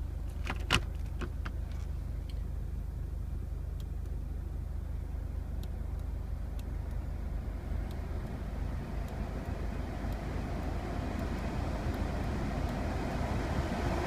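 Steady low rumble and rushing air noise in a Mercedes-Benz Vito van cabin. The climate-control blower gets louder over the last few seconds. A single sharp click comes about a second in.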